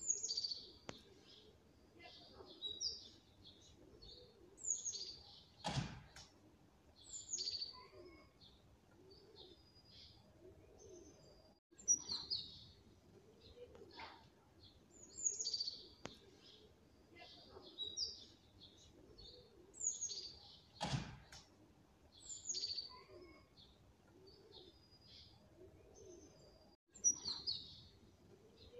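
Small birds chirping: short, high, falling chirps repeated every second or two, with two sharp clicks, the first about six seconds in and the second about twenty-one seconds in.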